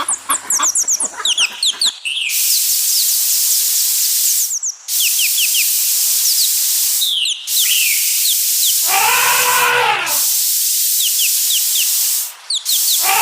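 Chickens clucking for the first two seconds. Then a loud steady high hiss, broken by short gaps, with many quick falling bird chirps over it, and about nine seconds in a single animal call of about a second that rises and falls in pitch.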